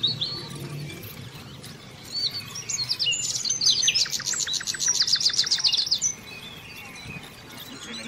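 Small songbirds chirping, with a fast trill of repeated high notes, about eight a second, running from about three seconds in to about six seconds in.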